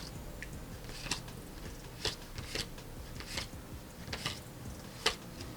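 Baseball trading cards being flipped through by hand, one card slid off the stack at a time: about six short papery flicks roughly a second apart, the loudest near the end.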